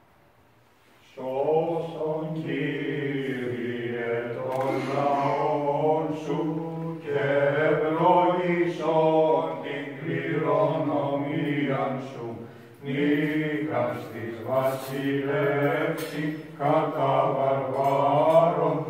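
Male voices chanting a Byzantine Orthodox hymn, starting about a second in, the melody moving slowly above a low note held steady beneath it. It breaks off briefly twice.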